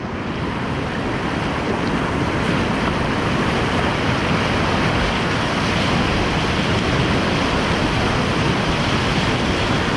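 Loud, steady rush of whitewater churning around a kayak surfing a river wave, heard close to the water.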